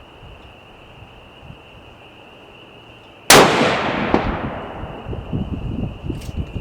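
A single shot from a 7mm-08 Encore Pro Hunter pistol: one sharp report a little over three seconds in, followed by a long echoing tail that fades over about two seconds.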